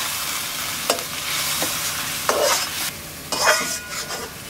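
Onion and spice paste sizzling in a metal wok (kadai) as a spatula stirs it, with a steady frying hiss and several sharp scrapes and knocks of the spatula against the pan.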